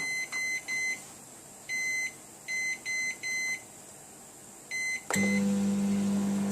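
Microwave oven keypad beeping about eight times as the extra cooking time is keyed in. A little after five seconds a click, and the oven starts running with a steady hum.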